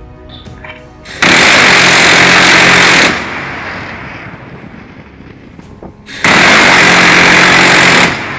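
Two bursts of rapid gunfire from a shipboard gun, each about two seconds long, starting and stopping sharply about four seconds apart. The first burst echoes as it fades.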